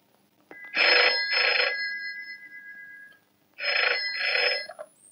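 Desk telephone's bell ringing in the double-ring pattern: two quick rings with a fading tail, a pause, then two more about three seconds in.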